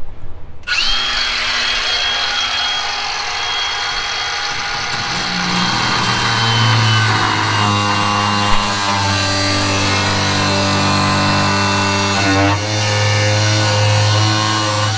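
Cordless angle grinder spinning up sharply just under a second in, then cutting through rusty sheet steel with a steady high whine that sags slightly in pitch under load. It eases off briefly and picks back up near the end.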